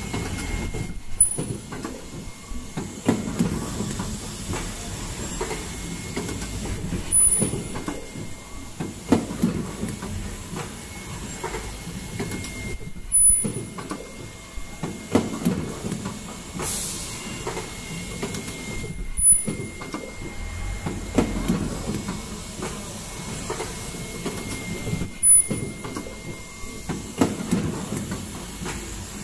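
Fully automatic N95 cup mask machine running, with a steady mechanical clatter and hiss and a louder clunk repeating about every two seconds as it cycles through each mask.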